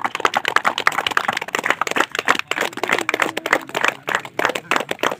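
A group of people applauding: many quick, overlapping hand claps.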